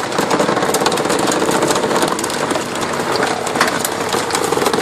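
An engine running steadily with a fast, even clatter over it, from the machinery crushing the furniture.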